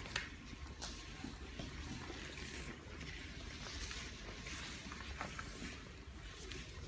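Scratching and scattered taps of a long wooden stick's tip drawn across a large sheet of paper on the floor, with a few footsteps.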